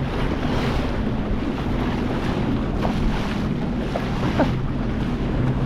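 Wind buffeting the microphone and water rushing on a rough sea, with the steady drone of a Sea-Doo GTX 230 jet ski's engine underneath.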